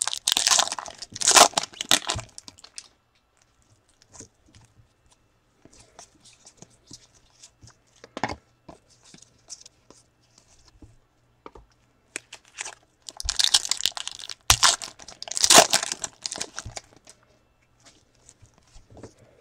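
A foil trading-card pack is torn open and crinkled by gloved hands. The crackling comes in two loud spells, one at the start lasting a few seconds and a second from about thirteen to seventeen seconds in. In between there are faint rustles and ticks of cards being handled.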